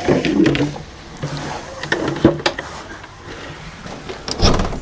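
Scattered clicks and knocks of coop handling, with a few low hen clucks, and a heavy thump about four and a half seconds in.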